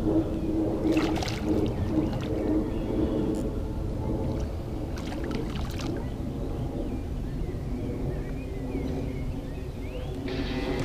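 A hooked asp splashing and swirling at the surface a few times while a spinning reel is wound in, over a steady low rumble with a faint hum. Music comes in near the end.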